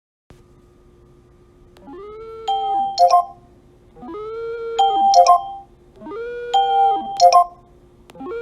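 Repeating electronic tone pattern over a steady hum: about every two seconds a held tone slides up, holds and falls away, followed by two quick, bright chime-like pings, three times over.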